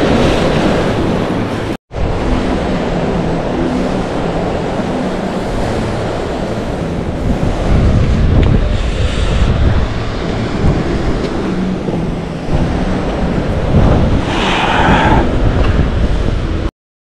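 Ocean swell washing and breaking against a rock ledge, with wind buffeting the microphone. The sound cuts out for an instant about two seconds in and stops dead near the end.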